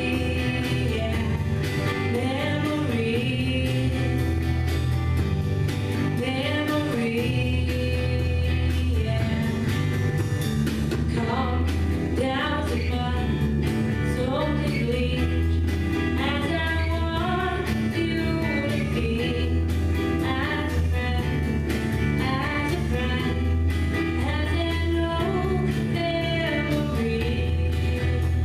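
Live band playing: a woman sings lead over electric guitars, bass guitar and a drum kit.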